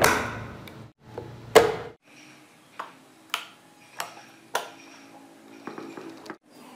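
Wooden panels of a hand-carved model car knocking as they are handled: two solid knocks in the first couple of seconds, then four lighter clicks about half a second apart and a short clatter near the end.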